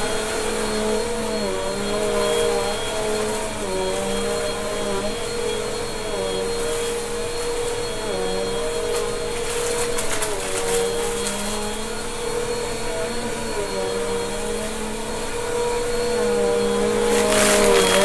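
Bissell upright vacuum cleaner running on carpet, its motor pitch dipping and recovering every second or two as it is pushed and pulled back and forth. A brief crackle near the end as debris is picked up.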